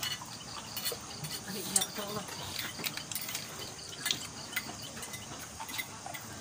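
Scattered light clinks and taps of spoons and ceramic bowls and plates during a meal, with a faint, evenly pulsing insect chirring in the background.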